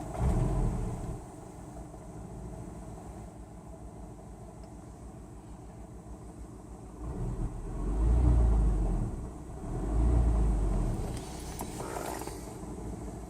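Car engine running, a steady low rumble that swells twice, about eight and ten seconds in.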